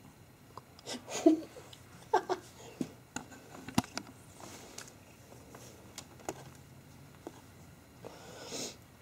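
Two cats tussling and grooming in a fleece cat-tree hammock: irregular soft rustles, scuffs and light clicks in short bursts, the loudest about a second in.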